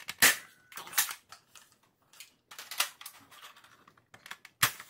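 Spring-powered Nerf Longshot, fitted with Jet Blaster Omni Kit parts, being primed and fired: a series of sharp plastic clacks from the bolt and the spring plunger, the loudest about a quarter second in, others about a second in, near three seconds and near the end, with lighter clicks between.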